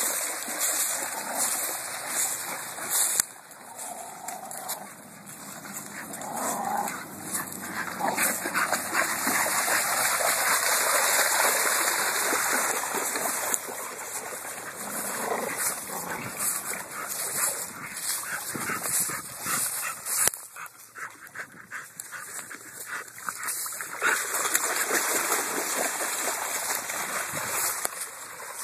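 Dogs splashing and wading through a shallow creek, water churning around their legs, with the dogs whimpering and yipping now and then.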